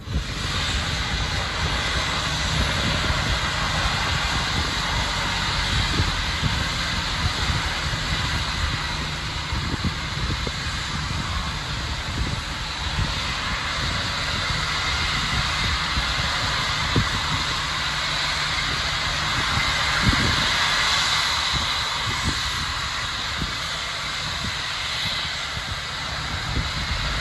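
Steady, loud hiss of gas venting at a rocket launch site's propellant tank farm, with a low rumble underneath.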